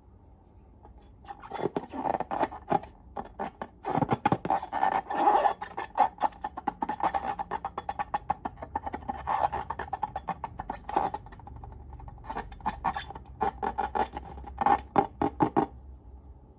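Slime being squeezed and pressed by hand, making rapid runs of wet clicks and small pops. The sound pauses briefly partway through and stops about a second before the end.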